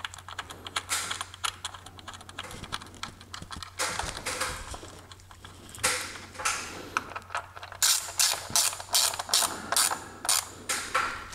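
Hand ratchet wrench clicking as the retaining bolt of an ignition coil pack is run down. The clicks are scattered at first, then settle into quick regular strokes of about three to four a second near the end.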